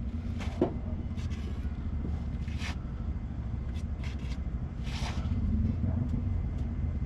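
A steady low rumble, like a vehicle running nearby, with a few short clicks and a light scrape scattered through it.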